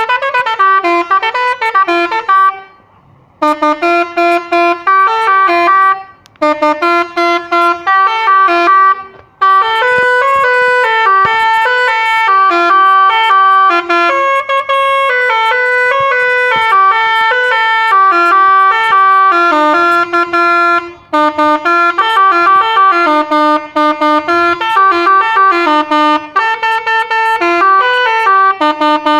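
Scania bus's multi-tone telolet horn playing a melody, its notes stepping quickly from pitch to pitch, with a few brief breaks between phrases.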